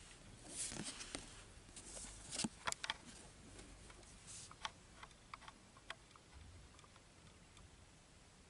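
Faint rustling, soft scrapes and light clicks of trading cards being handled and set down, bunched in the first three seconds, then a few scattered ticks.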